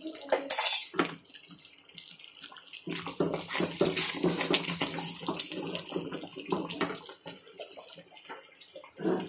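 Chunks of green mango in thick sugar syrup being stirred with a spoon in a metal pot: wet sloshing and squelching, busiest from about three to seven seconds in. A single sharp clatter comes about half a second in, and a shorter one near the end.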